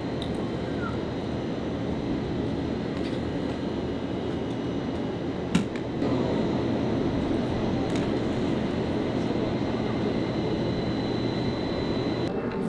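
Steady low mechanical rumble with a faint constant high whine, and one sharp click about five and a half seconds in.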